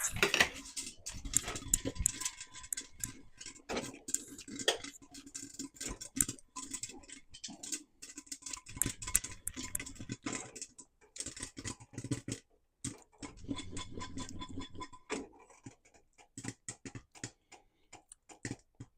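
Popcorn kernels popping in a pot on a stovetop: an irregular run of sharp pops and ticks, dense at first and growing sparser over the last few seconds.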